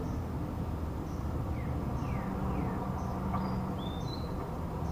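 Small birds calling: a few short falling whistles around the middle and a higher rising note near the end, with a faint high chirp repeating about once a second. Under them runs a steady low rumble.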